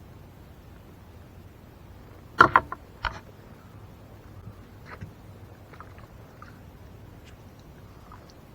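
Knocks against a kayak as it is handled in the water: a quick cluster of three or four knocks about two and a half seconds in and one more half a second later, with faint small ticks and water sounds around them.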